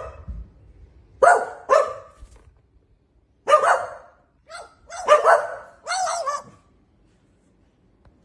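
Sharp dog barks, about six in short groups with quiet gaps between, from dogs and an Australian magpie mimicking dog barks; the barking stops well before the end.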